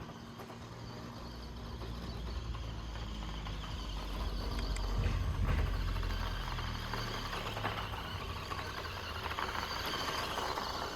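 Small electric remote-control car driving over dirt: its tyres crunching and rattling over loose soil and stones, with a low hum underneath, loudest about five seconds in.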